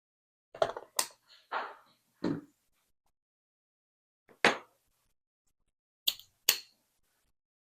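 A series of short clicks and knocks, about seven in all, of a lock cylinder and its parts being handled and worked on during disassembly.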